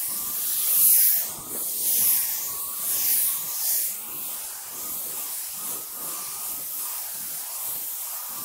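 Compressed-air gravity-feed spray gun hissing as it sprays paint onto a car door panel, with surges in the first few seconds as the gun sweeps across the panel, then steadier.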